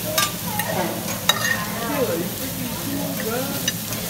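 Chicken, steak and shrimp sizzling on a steel teppanyaki griddle, with two sharp metal clicks of the chef's spatula and lid against the griddle, one just after the start and one about a second in.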